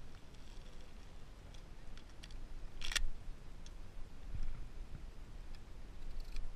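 Shells being loaded into a pump-action shotgun: a few short sharp clicks, the loudest about three seconds in.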